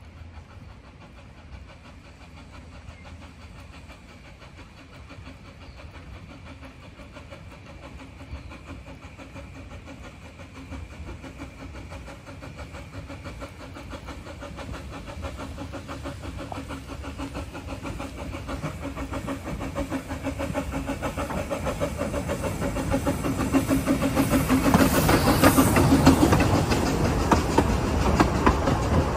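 Narrow-gauge steam train approaching and running past, growing steadily louder with a fast, even rhythm and loudest near the end as it passes close.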